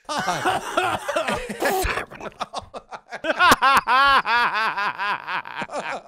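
Men laughing hard and helplessly. The laughter comes in quick repeated pulses and is loudest in the second half.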